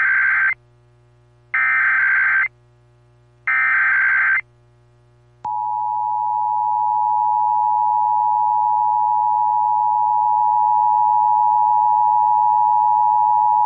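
Emergency Alert System tones for a Required Monthly Test: three bursts of warbling digital data tones (the SAME header), each about a second long and two seconds apart, then the EAS attention signal, a steady two-tone alarm near 1 kHz that comes on abruptly and holds for about eight seconds.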